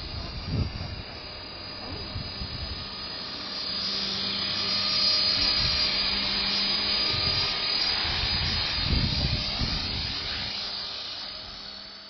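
Blade CP Pro electric RC helicopter whining steadily in flight, getting louder as it comes close a few seconds in and fading near the end. Gusts of strong wind buffet the microphone with low rumbles.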